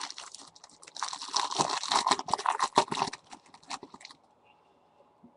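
Dense crackly rustling and clicking of glossy trading cards being handled and shuffled, busiest in the middle and dying away about four seconds in.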